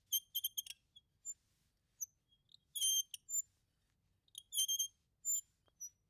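Swivel office chair squeaking in short, high-pitched squeaks that come in clusters. There is a quick run of squeaks at the start, a longer squeak about three seconds in, and another burst just before five seconds, with single chirps between.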